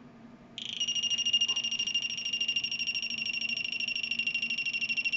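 Homemade REM pod built from a cheap door-touch alarm going off when someone comes near it: a shrill, rapidly pulsing electronic alarm that starts suddenly about half a second in and keeps sounding.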